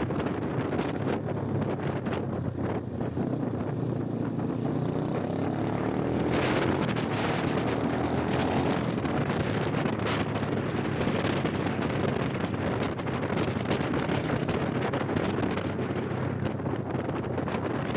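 Motorcycle engine running at road speed, its pitch rising and falling as the speed changes, under heavy wind noise buffeting the microphone.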